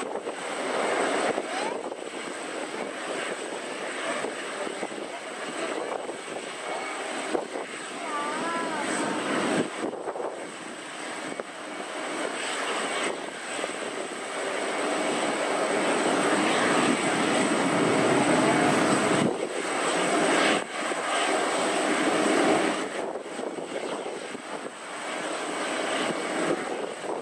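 Jet engines of a taxiing twin-engine Airbus A330 airliner running at low taxi power: a continuous rush with a steady high whine, growing louder past the middle.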